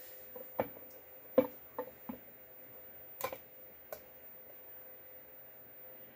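Several sharp clicks and knocks, bunched in the first four seconds, as the side case cover of a Beta four-stroke motorcycle engine is rocked and pried loose from the crankcase by gloved hands.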